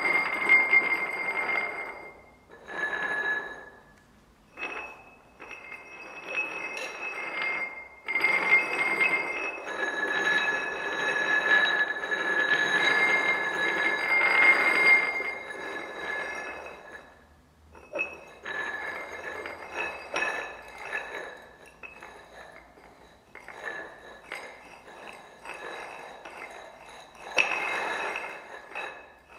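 Three upturned glass tumblers are slid and rubbed across a tabletop, their rims scraping. Each glass rings with a steady high tone, and together the three pitches form a major chord. The scraping comes in several long strokes with short pauses between them, and the ringing tones swell and fade with each stroke.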